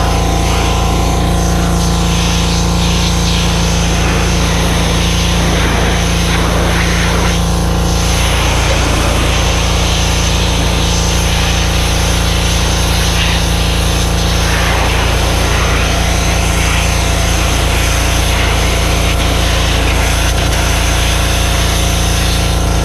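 Gas-powered Power Stroke 2200 PSI pressure washer running steadily under load, its small engine droning over the hiss of the water spray, which swells and eases every few seconds.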